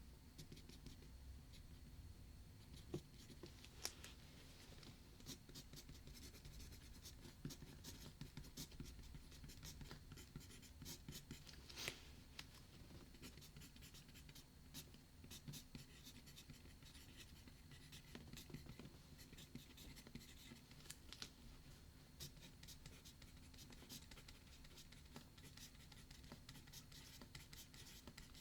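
Faint writing on paper: a run of quick, light scratching strokes with a few sharper taps, over a low steady hum.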